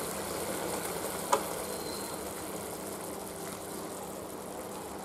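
Lemon chicken in yogurt gravy simmering in a kadai on a gas burner: a steady bubbling hiss with a faint hum underneath, and one short click about a second in.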